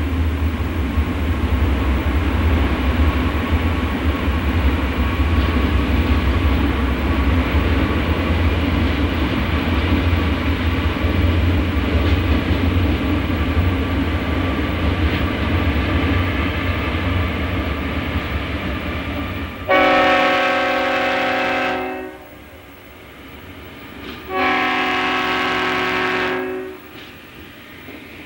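Chicago & North Western Alco C628 diesel locomotives passing, their 16-cylinder engines giving a deep, steady rumble. About two-thirds of the way through, the rumble gives way to two long blasts of a multi-chime air horn.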